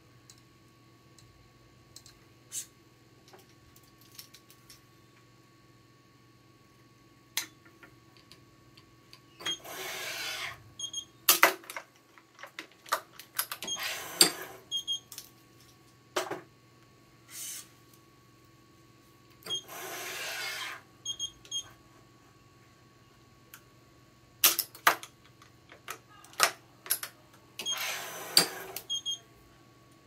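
String and clamp handling on an electronic badminton stringing machine. Scattered sharp clicks and four stretches of rubbing noise, each a second or so long, come as the string is drawn through, with a few short high beeps from the machine. A faint steady hum runs underneath.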